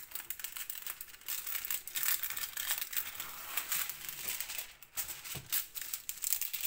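Clear plastic protective film on a diamond painting canvas crinkling and rustling as hands handle the canvas and press it flat, in irregular crackles.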